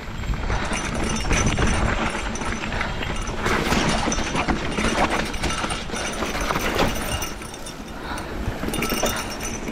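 Single-speed mountain bike riding fast over rocky dirt trail: tyres crunching over dirt and stones, with the bike rattling and knocking at each bump.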